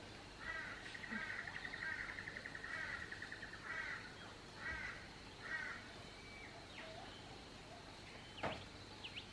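A bird calling outdoors: a fast rattling run of notes for about two and a half seconds, then three shorter calls in quick succession, over a steady background hiss.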